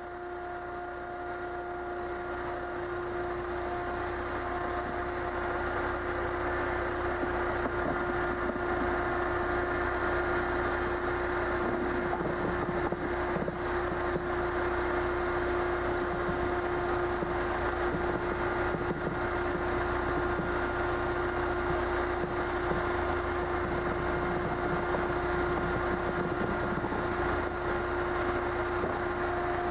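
A machine running steadily with a constant hum, growing louder over the first several seconds and then holding even.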